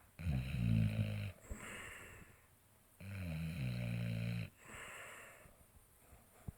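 Snoring in a slow, regular rhythm: two loud, low, buzzing snores on the in-breath, each lasting over a second, each followed by a softer breath out.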